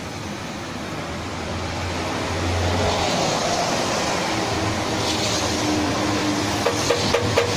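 Steady mechanical running noise with a low hum, with a quick series of light, sharp taps near the end.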